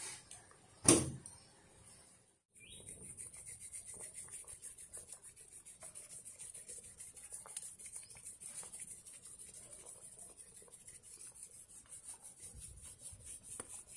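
A single sharp knock about a second in, then a steady, soft, fine crackling bubble of a pan of bánh canh broth simmering over a wood fire.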